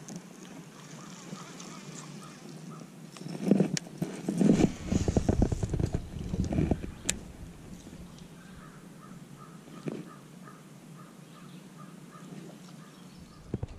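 A baitcasting rod and reel handled close to the microphone for a few seconds in the middle: knocks and rapid ticking. A bird calls in a steady series of short repeated notes, faintly at the start and again in the second half.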